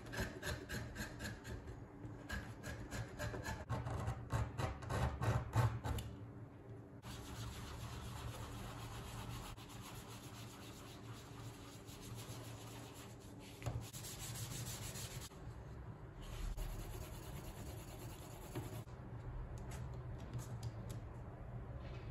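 A blade paring and scraping thick leather in quick repeated strokes, about two or three a second, for the first six seconds. Then a steady rubbing as dye is worked into the leather with a sponge, with lighter cutting strokes near the end.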